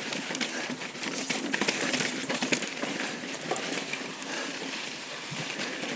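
Mountain bike rolling fast down a rough dirt trail: steady tyre noise on dirt and gravel, with frequent short clicks and knocks as the bike rattles over roots and rocks.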